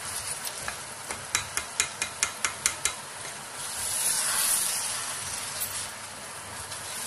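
Chicken masala sizzling in an open pressure cooker while a spatula stirs it. The spatula knocks against the pot in a quick run of about nine, some four a second, then the sizzling hiss swells louder about four seconds in.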